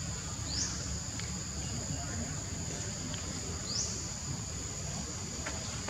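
A chorus of cicadas gives a steady, high-pitched buzz that rises into a fresh phrase about every three seconds, over a low rumble.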